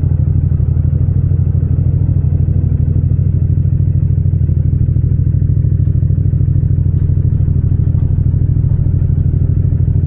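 Yamaha MT-07's parallel-twin engine idling steadily, a low, even rumble.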